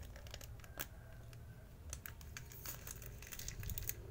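Plastic fish-shipping bags being handled and opened in water: crinkling plastic and irregular small clicks, thickest in the second half.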